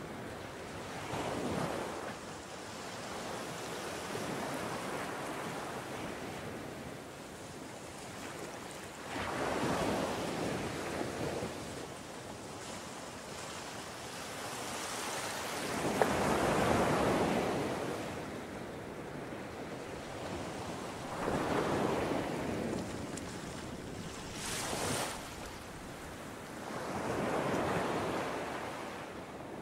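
Sea surf washing onto a sandy beach, the noise swelling and fading with each wave every few seconds, with wind.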